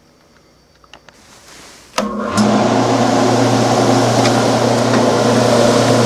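Home-made box fan, a 1/6 horsepower 1725 RPM induction motor driving an old heater fan blade, switched on with a click about two seconds in. It comes up to speed within half a second and then runs steadily, a low hum under a loud rush of air.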